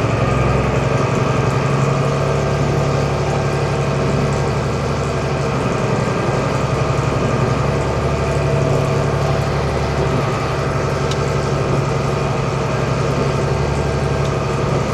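Tractor engine running at a steady speed, driving a diet feeder as it feeds out a mix to cattle.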